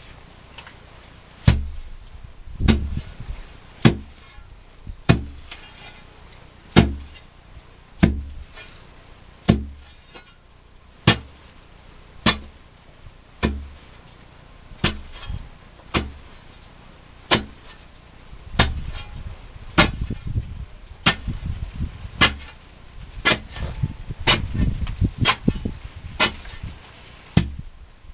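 A digging tool striking earth and gravel at the bottom of a hand-dug mine pit, sharp blows at a steady pace of about one every second and a bit. In the last third the blows come heavier and less even, with thuds and scraping of loosened earth between them.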